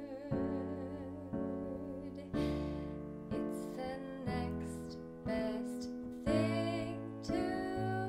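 A woman singing to her own electronic keyboard, played with a piano tone. A chord is struck about once a second and left to die away, with her voice bending over it in the second half.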